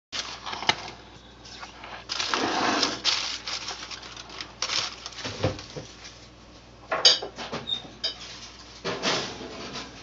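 Kitchen clatter: irregular scrapes and knocks of cookware being handled, with several longer scraping passes of about a second each between sharper clicks.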